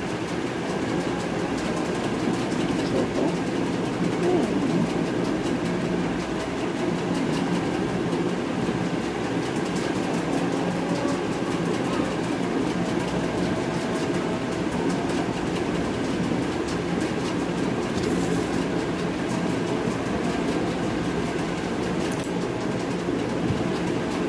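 A steady, even mechanical hum of a machine running, with a faint constant tone through it.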